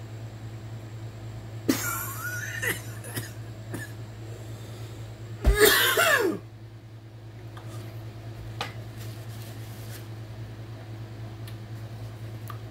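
A man coughing and clearing his throat, a reaction to an extremely sour soda. A rasping cough comes about two seconds in, and a harder, louder cough or gag about five and a half seconds in, with a few small clicks after.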